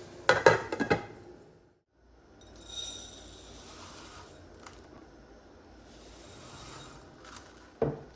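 Kitchen handling sounds: a quick run of clinks and knocks in the first second, then soft scraping and rustling with a couple of light clicks, and one sharp knock near the end.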